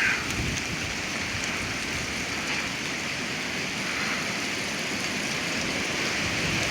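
Strong storm wind rushing steadily through trees: an even, unbroken hiss.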